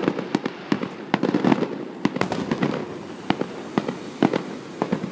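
Fireworks display: aerial shells bursting in a rapid, irregular string of sharp bangs and pops, several a second, over a continuous low rumble.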